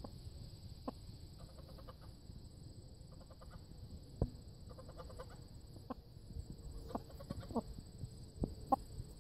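Chickens clucking quietly now and then: single short clucks scattered through, with a few quick runs of soft clucking.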